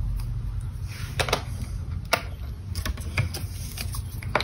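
A few light, separate clicks and taps of small craft supplies handled on a desk, such as a plastic die package and clear acrylic block, over a low steady hum.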